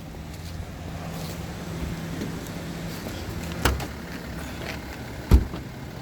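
BMW diesel engine idling steadily, with two thumps, the second and louder near the end.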